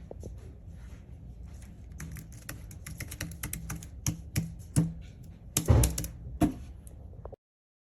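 Keys of a slim aluminium Bluetooth numeric keypad being pressed in quick, irregular taps, with a few louder knocks about two-thirds of the way through. All sound stops abruptly just before the end.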